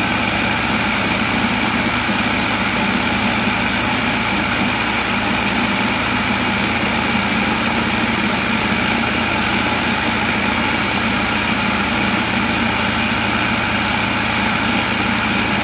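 Food processor motor running steadily, a constant hum with a whine over it, as it blends peanut butter and cacao powder into a thick chocolate paste.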